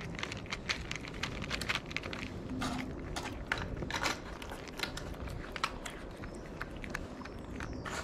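Two cats eating wet food and dry kibble from a plastic tray close to the microphone: quick, irregular chewing, crunching and smacking clicks.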